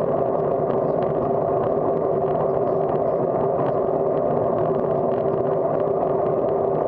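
Steady road and wind noise of a bicycle rolling along an asphalt street, picked up by a camera mounted on the handlebars, with faint scattered ticks.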